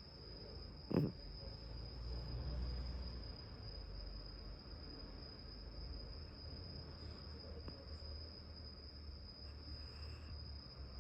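Sleeping cat snoring softly, low breathing rumbles, with one short louder low sound about a second in, over a steady high-pitched tone.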